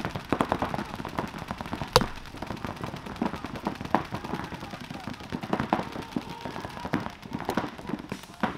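Paintball markers firing rapid strings of shots, a fast popping that comes in bursts, with one sharper, much louder crack about two seconds in.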